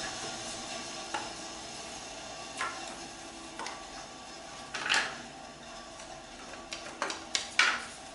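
Thin wooden divider strips being set by hand into the slotted grid of a jewelry-case tray: a string of light wooden taps and clicks, the loudest about five seconds in and a quick cluster of them near the end. A faint steady hum runs underneath and slowly fades.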